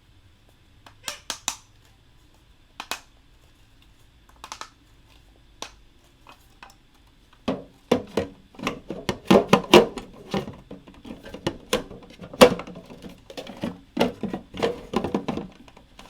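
Hard plastic model-kit parts clicking and rattling as they are handled and fitted together. There are a few scattered clicks at first, then a dense run of clicking and rattling from about halfway.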